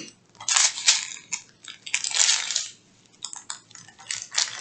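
Small plastic packets of resin diamond-painting drills being handled, the beads clinking and rattling and the bags crinkling in a string of short bursts.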